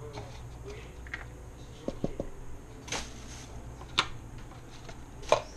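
Kitchen handling noises as shredded mozzarella is worked into stuffed pork chops: three quick soft knocks about two seconds in, then sharp clicks at about four seconds and near the end, over a low steady hum.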